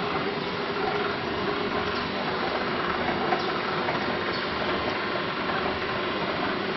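Aluminium welding-wire drawing and spooling machinery running steadily: a constant mechanical drone with a steady hum underneath.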